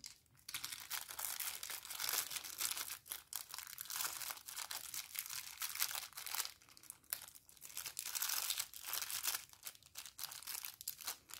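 Small clear plastic zip bag of hearing-aid ear tips crinkling as it is handled and opened, in irregular crackles with short pauses between.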